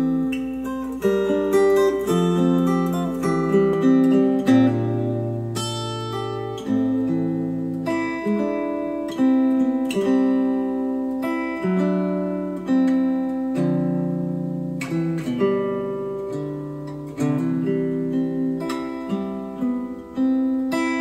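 Acoustic guitar music: plucked notes start sharply and ring away over a low accompaniment. It plays through Polk Audio Reserve R100 bookshelf speakers and, from about four seconds in, through Monitor Audio Bronze 100 bookshelf speakers, driven by an Arcam SA10 integrated amplifier.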